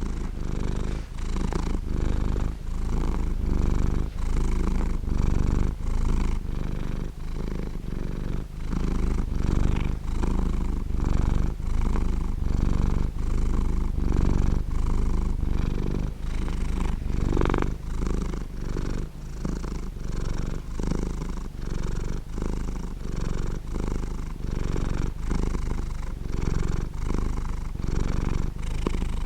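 Domestic cat purring: a warm, round purr, deepest at the low end, pulsing in a steady rhythm as the cat breathes in and out, with one brief higher note about two thirds of the way through.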